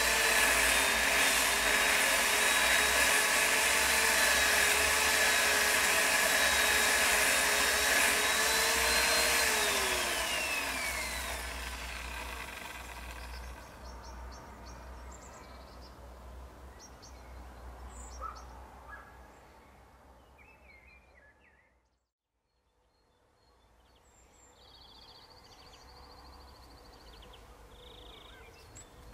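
A power saw's motor runs at a steady high pitch, then winds down in pitch and stops about ten seconds in. Afterwards faint birds chirp.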